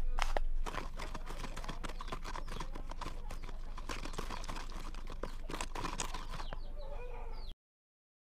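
A wooden stick stirring and scraping a thick wet paste in a thin plastic cup: a quick, uneven run of small clicks and scrapes against the cup, cutting off abruptly near the end.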